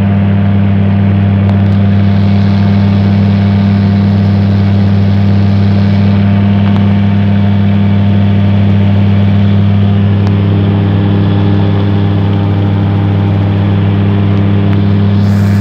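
Gyrocopter's engine and propeller running steadily in flight, heard from inside the cockpit as a loud, even low hum with a rush of airflow noise over it.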